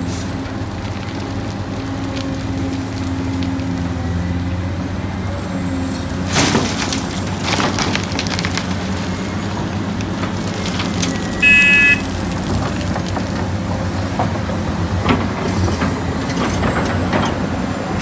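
Large Caterpillar hydraulic excavator's diesel engine running steadily under load while it digs and loads dump trucks. Clattering of rock and dirt comes twice, about six seconds in and again near the end. A short beep sounds about eleven and a half seconds in.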